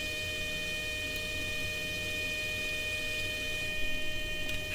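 Mini lathe running at steady speed during a thread-cutting pass, its motor and drive giving a steady hum with a high whine.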